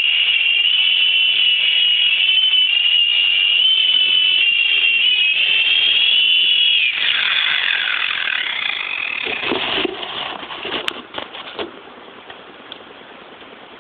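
Mini Cobra RC helicopter's small electric rotor motor whining at a high, slightly wavering pitch, then winding down about seven seconds in as the pitch falls and fades. A few light knocks and clatter follow.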